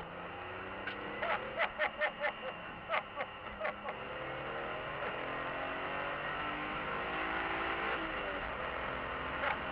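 BMW E46 M3's S54 straight-six heard through a dashcam microphone in the cabin, accelerating hard: its pitch climbs steadily through the gear and drops at a shift about eight seconds in. Before the climb, from about one to four seconds, comes a quick series of short sharp sounds.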